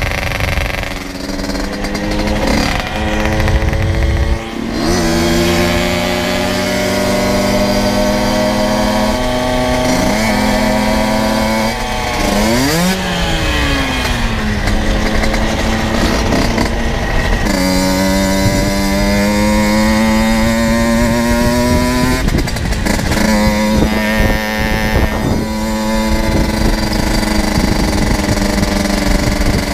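Generic Trigger SM 50's 50cc two-stroke engine with an aftermarket Turbokit exhaust, loud and revving hard under acceleration. Its pitch climbs through each gear and drops sharply at the upshifts several times, over a low rush of wind noise.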